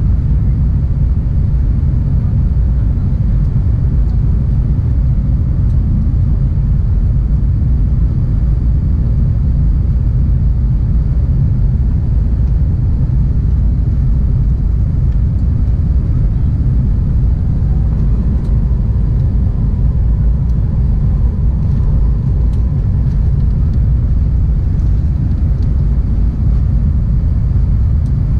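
Airbus A320 cabin noise during the climb after takeoff: the engines and rushing air make a steady, deep rumble.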